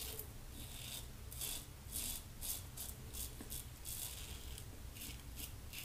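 Fine Accoutrements Marvel double-edge safety razor scraping through lathered stubble on the cheek. It makes a series of short, faint rasping strokes, about two a second.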